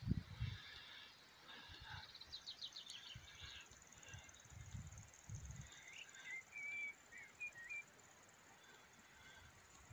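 Small songbirds singing in quiet countryside: a quick falling run of high notes about two and a half seconds in, then short whistled phrases around seven seconds. A few low bumps of wind or handling on the phone's microphone near the start and around five seconds.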